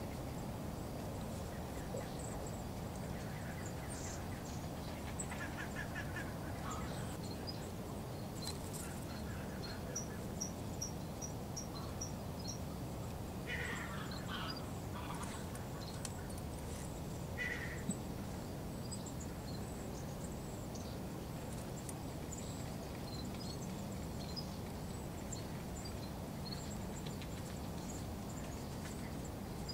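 Outdoor park ambience: a steady low rumble with small birds chirping high and thin throughout, and a few short, louder bird calls around the middle.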